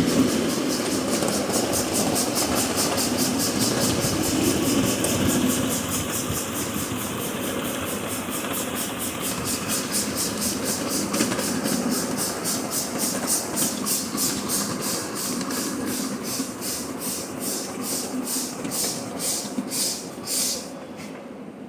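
Steam locomotive on a ride-on live-steam railroad chuffing with a train rumbling behind it; the exhaust beats slow steadily as the train comes down to a crawl, ending with a last stronger chuff near the end.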